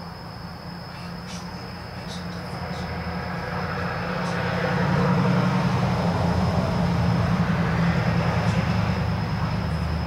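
A heavy vehicle passing, its engine rumble and road noise building over the first few seconds, loudest about halfway through, then easing off. An insect's steady high trill continues above it.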